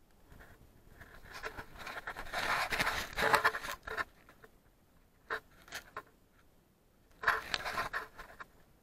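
Irregular scraping and rustling of clothing and hands against rough rock as someone clambers through a tight gap in a tunnel. There is a longer stretch of scuffing about one to four seconds in, two short scuffs, then another burst near the end.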